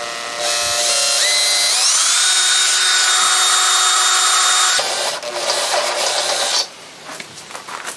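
Electric drill boring a hole through a motorcycle fender. The motor spins up with a rising whine and runs steadily, then turns rougher for about two seconds as the bit cuts, and stops.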